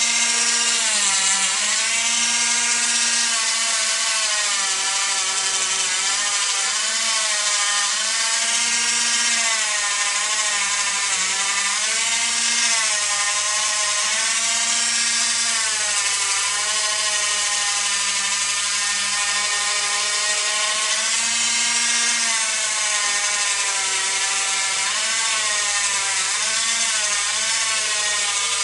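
Handheld rotary tool running with a small disc held against a brass lighter part, a steady whine whose pitch keeps sagging and recovering as the disc is pressed on and eased off.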